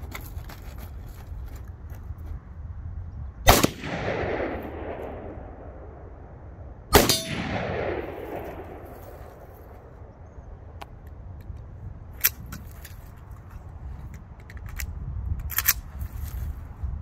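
Two rifle shots about three and a half seconds apart, each followed by a long fading echo. Later come a few much lighter metallic clicks and clanks.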